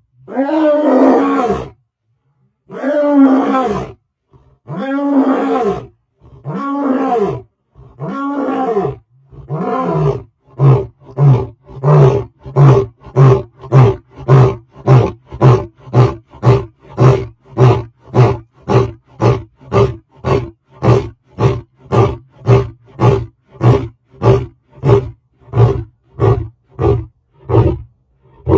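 A cat calling: five drawn-out meows whose pitch rises and falls. From about ten seconds in, these turn into a fast run of short, regular calls, about two a second.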